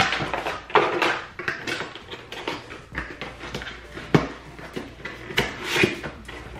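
Cardboard box inserts and paper packaging being handled and moved about: irregular rustling with light knocks, the sharpest about one second and about four seconds in.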